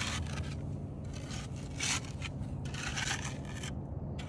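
A hand digging tool scraping into compact sand in short strokes, about four in quick succession, over a steady low hum.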